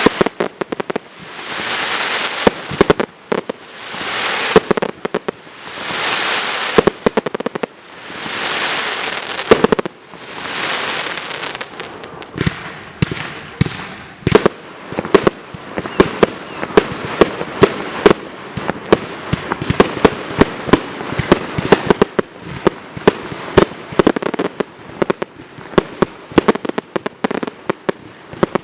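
Fireworks display: a series of swelling hisses about every two seconds, each ending in a sharp bang, then from about twelve seconds in a rapid volley of many sharp bangs and crackles.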